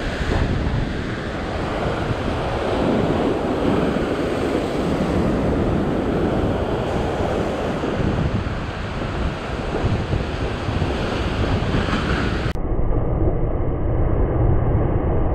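Rough sea surf breaking and washing against a rock ledge, with wind buffeting the microphone. A wave bursts up in spray near the end.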